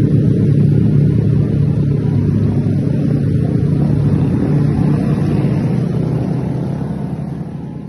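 Yamaha R15 V3 motorcycle's single-cylinder engine running with a steady drone, gradually fading away over the last couple of seconds.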